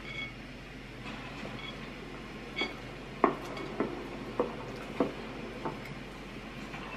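A hand rummaging in a bowl of popcorn. It makes a run of five sharp clicks and knocks a little over half a second apart, starting about three seconds in, with the first the loudest.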